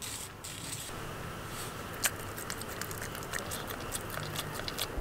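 Small dog eating from a hand: many soft, irregular chewing clicks, with one sharper click about two seconds in.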